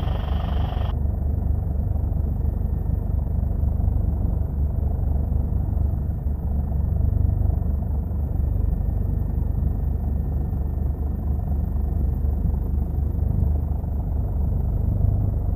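Helicopter in flight, heard from aboard: a steady, loud low drone of rotor and engines. A short burst of hiss sounds at the very start.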